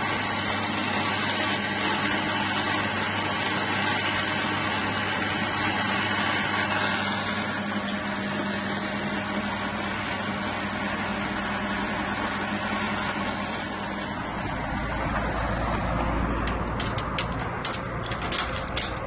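Metal lathe running steadily while its cutting tool turns a flange for a stove, a constant motor hum with the noise of the cut. About sixteen seconds in this gives way to a quick run of sharp metallic clicks and knocks from a metal gate latch being worked.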